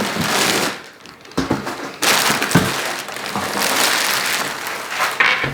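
Packaging being handled and pulled open: a dense crinkling and rustling with scattered clicks and knocks, pausing briefly about a second in.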